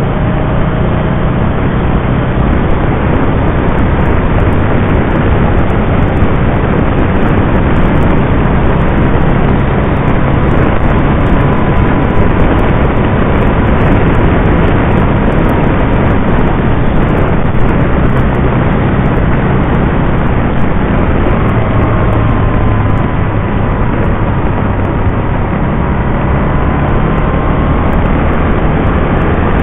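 Can-Am Spyder RT three-wheeled motorcycle cruising at steady speed: a loud, even rush of wind on the microphone over a steady engine drone, with a faint tone that rises and falls a little in pitch.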